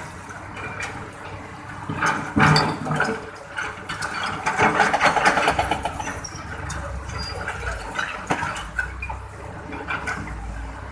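Excavator at work: its engine runs steadily underneath while loud bursts of clattering and scraping come about two seconds in and again from about four to six seconds in.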